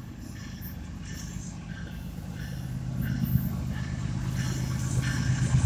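Diesel locomotives of a freight train approaching, their low engine drone growing steadily louder.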